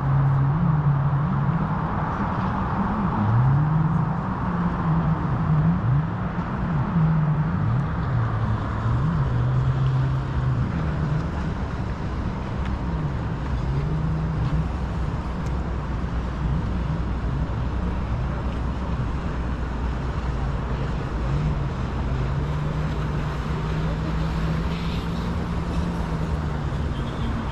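Road traffic noise: motor vehicles running past, with a low hum that wavers in pitch.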